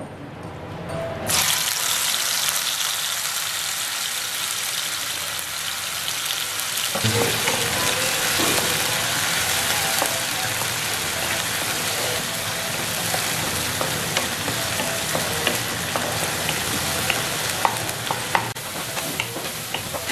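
Onion, ginger and garlic paste sizzling loudly in hot oil, starting suddenly about a second in as the paste goes into the pan. From about seven seconds in it keeps frying while stirred with a wooden spatula, with light scrapes and taps against the nonstick pan.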